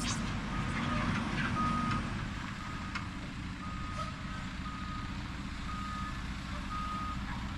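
Truck's back-up alarm beeping steadily, about one beep a second, over the low rumble of its engine as it reverses with the trailer.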